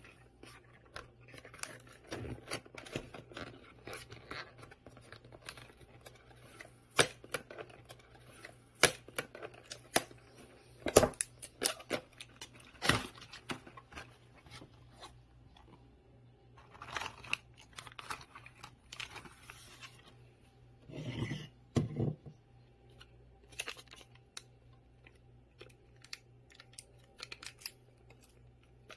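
Hands handling a cardboard box and plastic stick packets of powdered kombucha: cardboard and packet rustling and clicking, with a stick packet torn open. The loudest sharp clicks come about halfway through, and longer rustling follows.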